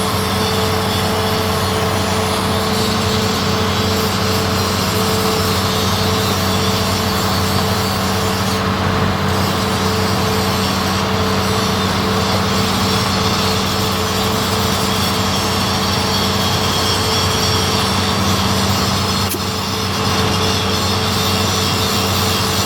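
Heavy diesel engine running steadily with a constant hum.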